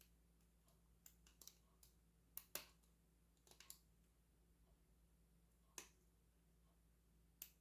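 Faint, irregular clicks and ticks of a hook pick working the pins of a Master Lock 410 lockout padlock under very light tension, probing the back pin stack for the standard pin.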